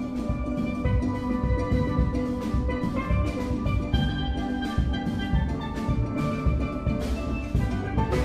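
Steel orchestra playing a classical piece: many steelpans sound held melody and chords, with drums keeping a steady pulse underneath.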